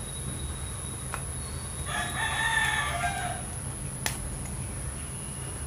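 A rooster crows once, about two seconds in, for a little over a second. There are two sharp clicks, one before the crow and one after it, over a steady low rumble.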